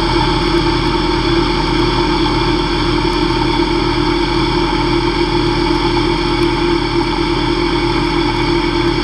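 Hobby CNC lathe spindle turning an aluminium bar at 2500 RPM while a carbide finishing insert takes a light cut: a steady machine hum with several steady whining tones and a faint low pulsing underneath.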